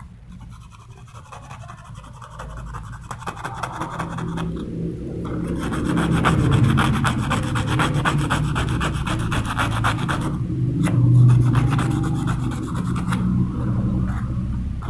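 Abrasive paper rubbed rapidly back and forth over a small metal spur cap held in the fingers, scouring it clean: a fast, steady scratching that grows louder about five seconds in and dips briefly near ten seconds.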